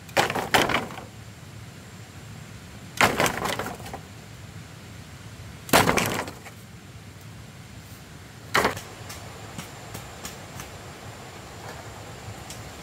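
Chopping blows into wood: four heavy strikes about three seconds apart, each a sharp crack, followed by a few fainter knocks near the end.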